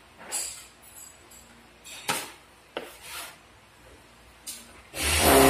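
Steel plastering trowel scraping and clinking as it presses cement plaster into chased wall channels and against the hawk: about five short strokes. About five seconds in, loud music starts.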